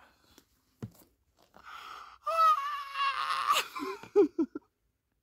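A man crying out with emotion: a high, drawn-out cry of just over a second, then three or four short sobbing breaths.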